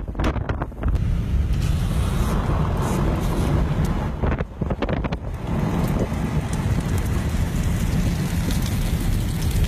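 Strong wind buffeting the microphone: a steady, heavy low rumble that eases briefly twice, just after the start and again around four to five seconds in.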